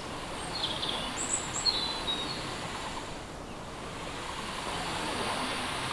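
Forest ambience: a steady hiss of outdoor background noise, with a few short, high bird chirps about one to two seconds in.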